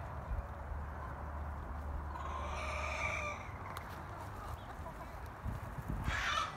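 A rooster crows once, a call of about a second and a half starting about two seconds in. A shorter, harsher call starts near the end.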